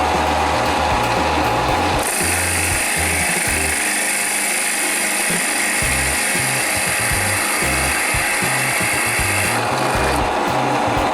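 Titan TTB541DBT pillar drill's 700 W motor running steadily while a Forstner bit cuts into wood. The cutting starts about two seconds in and stops about a second and a half before the end, leaving the motor spinning freely.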